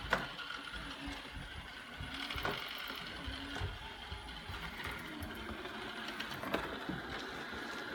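iLife robot vacuum running as it cleans: a steady mechanical whir from its brushes and drive motors, with a few light knocks.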